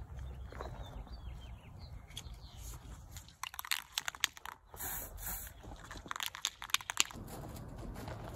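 Spray-paint can being handled: clicks and scrapes as a nozzle cap is pushed onto it, with a short hiss about five seconds in.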